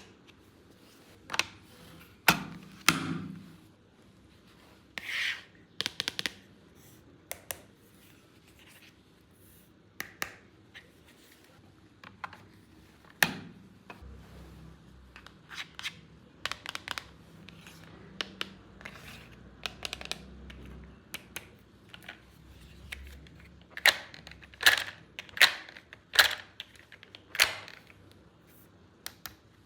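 Hands handling a plastic toy playset and its packaging: scattered sharp clicks, taps and short scraping rustles, coming thickest near the end.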